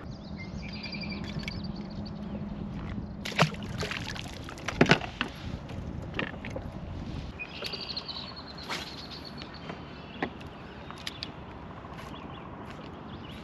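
Steady low hum of a small boat motor that cuts off about seven seconds in, with a few sharp knocks, the loudest around four and five seconds in, and birds chirping.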